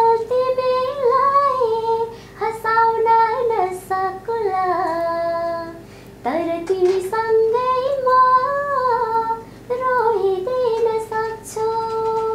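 Young female voice singing unaccompanied: a melody of long held, ornamented notes in short phrases, with a brief breath about six seconds in.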